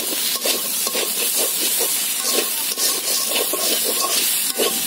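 Metal spatula scraping and stirring a fish-and-onion mash around a steel wok over the heat, with the oil sizzling steadily underneath. The scrapes come as repeated, irregular strokes, several a second.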